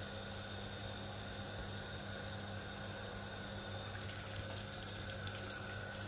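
Small discs of jaggery rice-flour dough deep-frying in hot oil: a faint steady sizzle, then, about four seconds in, a freshly dropped disc sets off dense crackling and popping. A steady low hum runs underneath.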